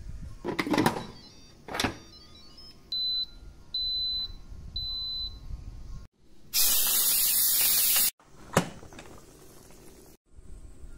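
Three short, high electronic beeps from an Insignia electric pressure cooker's control panel as it is set, after some knocks and clatter. A loud, steady hiss follows for about a second and a half.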